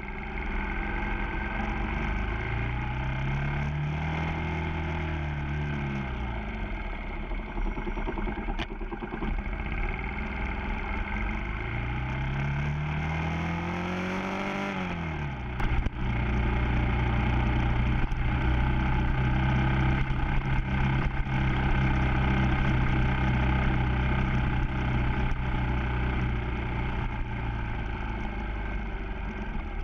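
Yamaha FZ6 motorcycle's inline-four engine, revving up and easing off twice as the bike accelerates and slows. From about halfway it is louder and holds a steady pitch.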